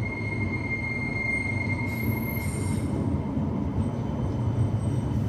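A CAF Urbos tram approaching on street track, its wheels giving a steady high squeal that fades out about two and a half seconds in. The low running rumble grows louder as the tram draws near.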